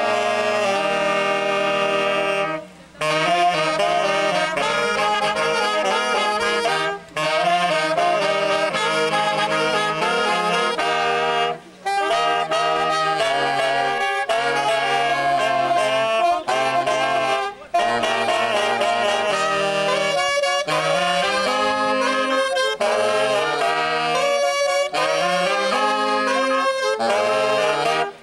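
Saxophone playing an instrumental melody over a band accompaniment with a moving bass line. The music breaks off for a moment about five times between phrases.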